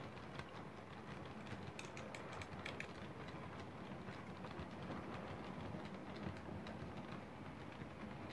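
OO gauge model locomotive, a Hornby Mallard body on a Flying Scotsman chassis and motor, running steadily with a train of coaches: a faint motor hum and the wheels rolling on the track, with a run of light clicks about two to three seconds in.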